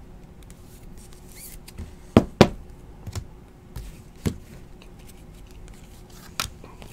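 Trading cards and plastic card sleeves handled by hand: light rustling with a few sharp taps and clicks, two loud ones close together about two seconds in and a few more spread after.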